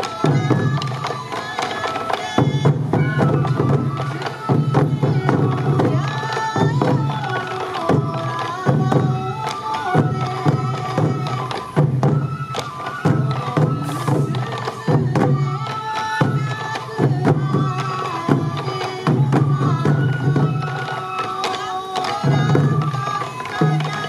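Sansa odori festival music: Japanese taiko drums beating a steady rhythm under a wavering fue bamboo flute melody.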